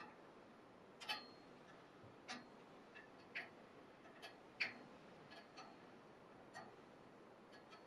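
Faint, irregular clicks and short scrapes of a metal carving tool cutting into soft candle wax and lifting the layered petals, against near silence.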